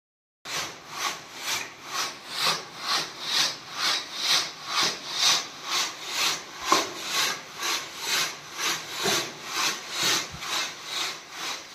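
Sand and old plaster rubble rasping across the wire mesh of a large wooden-framed sieve shaken back and forth by hand, about two strokes a second. The rubble is being screened so that the fine sand falls through for reuse in plaster.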